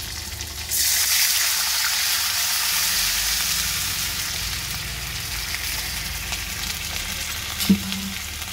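Water poured into the hot oil of a dhokla tempering (mustard seeds, green chillies, curry leaves) in a kadhai sets off a sudden loud sizzle about a second in, which slowly dies down. A brief knock near the end.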